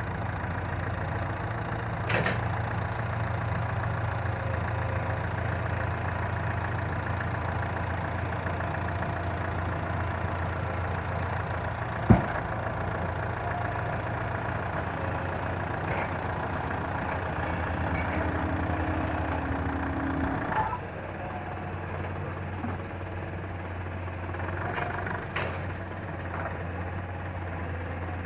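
Small dump truck's engine running steadily while the tipper bed is raised and the soil load slides out. There is a single sharp knock about twelve seconds in. The engine note changes and drops in level about twenty seconds in.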